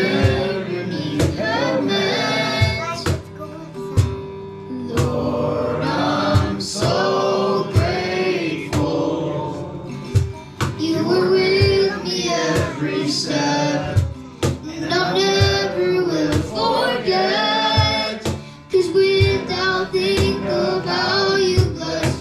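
Worship music: several voices singing a sustained melody together over instruments with a steady beat.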